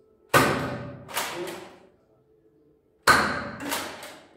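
Nerf blaster fired twice, about three seconds apart: each shot a sharp thump, followed a moment later by lighter knocks.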